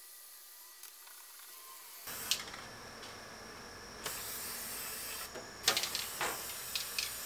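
Aerosol spray can of rust converter hissing in three bursts, with short breaks and a few small clicks between them.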